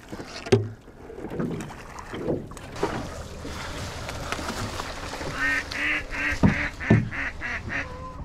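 A duck quacking in a quick run of about seven quacks, starting about five and a half seconds in, with a few dull knocks around it.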